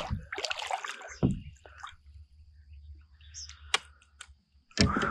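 Water splashing as a northern snakehead is grabbed by hand at the side of a kayak, then low handling rumble with a few sharp clicks as the fish is lifted aboard. A louder scuffling noise comes just before the end.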